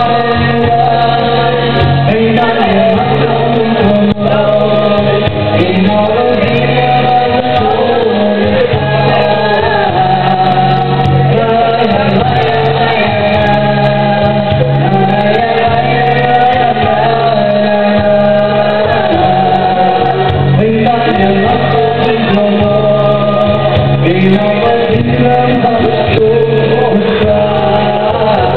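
Live music: a duo singing a Portuguese-language song over an accompaniment with a steady bass line.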